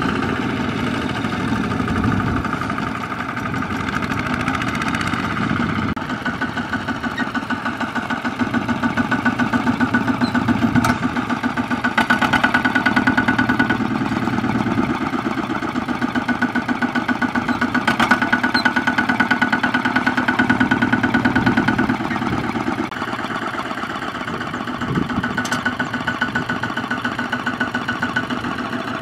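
Single-cylinder diesel engine of a Kubota ZT155 two-wheel walking tractor running with a fast, even chug while its drive wheel works in deep, sticky mud. It gets louder from about six seconds in and eases back after about twenty-two seconds, with a few faint sharp clicks along the way.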